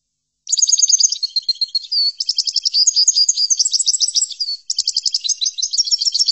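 European goldfinch singing a fast, continuous run of twittering trills and chirps. It starts about half a second in and pauses briefly about two-thirds of the way through.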